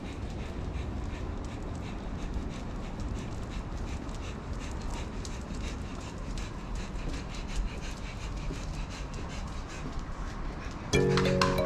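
Dog panting, a quick, regular rhythm of short breaths, with music coming in near the end.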